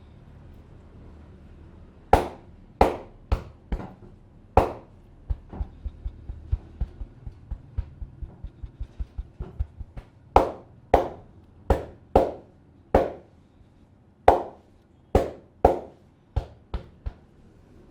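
Barber's hands slapping and striking a client's head during an Indian head massage: loud, sharp slaps in irregular groups, with a run of lighter, quicker taps in the middle.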